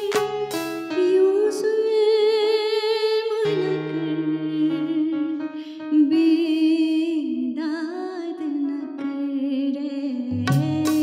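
A woman singing long, wordless, wavering notes with vibrato over a sustained musical accompaniment. Percussion strokes stop about a second in and come back near the end.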